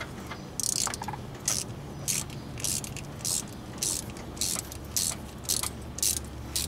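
Ratchet wrench worked in short, quick strokes, about eleven bursts of clicking at a steady pace. It is loosening the clamp on a cracked bypass heater hose.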